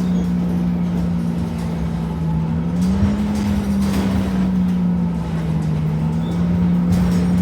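Temsa Avenue LF bus with a DAF Euro 5 engine and ZF gearbox running, carrying a strong steady hum near 200 Hz over the engine rumble; the hum steps up in pitch about three seconds in and eases back down after about five seconds. This hum is the strange sound the bus is known for.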